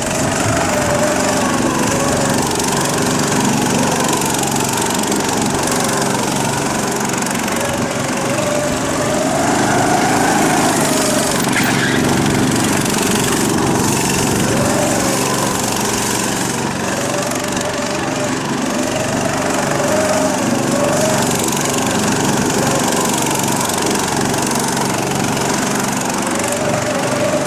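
Go-kart engine running as the kart weaves through a cone slalom, its pitch rising and falling again and again as the driver accelerates and lifts off between the cones.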